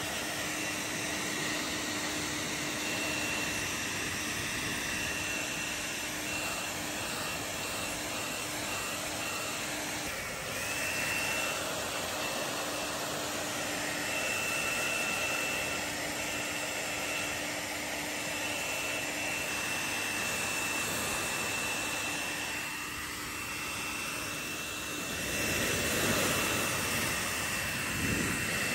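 Steady rushing noise of a running motor-driven fan, with a faint low hum and a thin high whine that come and go; it grows a little louder near the end.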